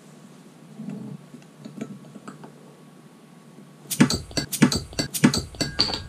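A metal bottle opener prying the crown cap off a glass beer bottle: a few faint handling clicks, then about two seconds of sharp metallic clicks and clinks as the cap comes off, starting about four seconds in.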